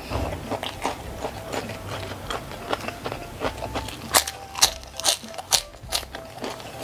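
Close-up eating sounds: a mouthful of rice with stir-fried mini sausages chewed by hand-fed bites, a steady run of wet clicks. From about four seconds in come several sharper, louder bites as a sausage and rice are bitten into.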